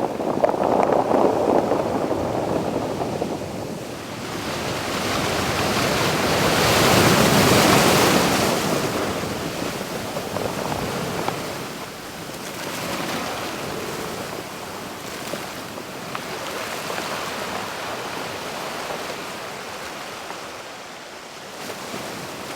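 Ocean surf breaking and washing ashore in slow swells of noise. The biggest surge builds to a peak about seven or eight seconds in, and smaller surges follow.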